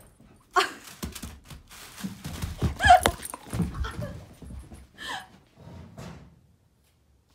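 A wall of toilet-paper rolls collapsing as a dog crashes through it: a rapid jumble of soft thuds and knocks as the rolls tumble onto the floor, loudest about three seconds in, with a few short cries over it.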